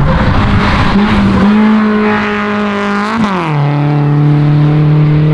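Rally car engine running hard as it passes close by. Its steady pitch drops sharply about three seconds in as it goes past, then holds at the lower pitch.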